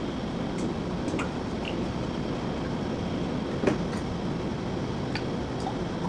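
Steady mechanical background noise of a coffee bar, with a few light clinks and taps of barista tools and cups, one sharper knock about two-thirds of the way through.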